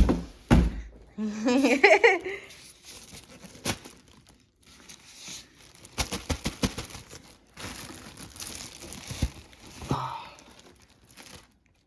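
A thump near the start, then plastic wrapping and cardboard packaging crinkling and tearing as a new PC case is unboxed, with scattered clicks and rustles.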